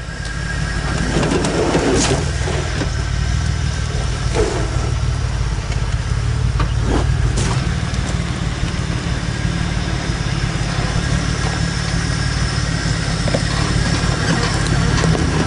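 Rock-crawler buggy's engine running low and steady as the buggy crawls over boulders, with a few sharp knocks about two seconds in and twice around seven seconds in.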